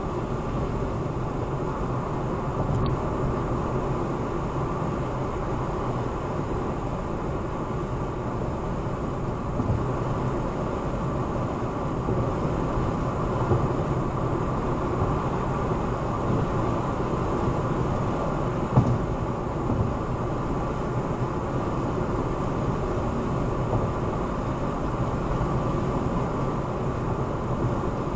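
Steady tyre and wind noise of a car cruising at about 70 mph on a highway, heard from inside the cabin. One brief thump comes about two-thirds of the way through.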